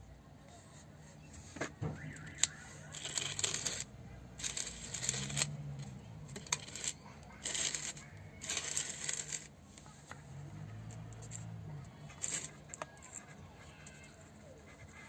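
Metal parts and tools clinking and scraping while a power steering pump is taken apart: sharp clicks and several short scraping bursts.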